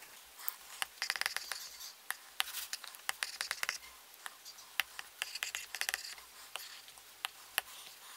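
Stylus tip tapping and scratching on an iPad's glass screen during handwriting and tapping on the on-screen keyboard: sharp single clicks and quick runs of taps, with soft scratching strokes between them.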